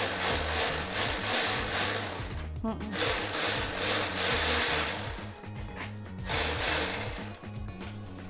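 Cordless electric ratchet running in three bursts, the last one shorter, as it drives in the rear shock mounting bolt on a Harley Softail.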